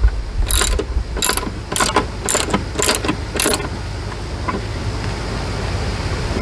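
A socket ratchet being worked on a mounting bolt: about six short ratcheting strokes, roughly two a second, which stop a little over halfway through, over a steady low rumble.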